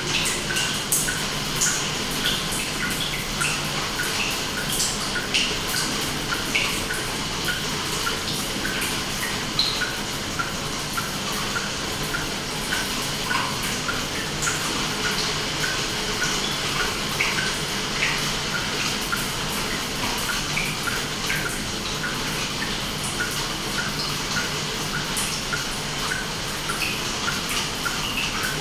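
Water dripping over a steady hiss of running water: a quick, fairly even patter of small drops with scattered sharper plinks.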